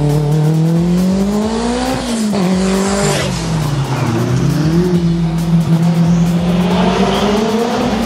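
Competition car's engine at full throttle, rising in pitch and dropping sharply at gear changes about two and three seconds in, then climbing steadily again as it pulls hard up the course.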